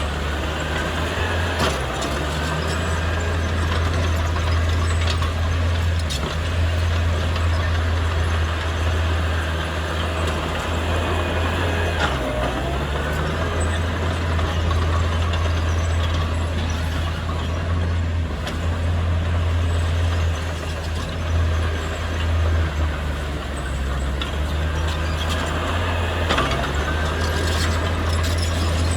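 Heavy diesel earthmoving machinery running steadily, its engine note shifting with load every few seconds, with a few sharp knocks or clanks.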